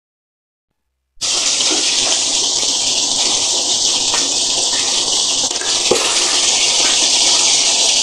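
A pot of sinigang (sour salmon soup) boiling hard on a gas stove, a loud steady hiss that starts suddenly about a second in, with a couple of light clicks from the ladle.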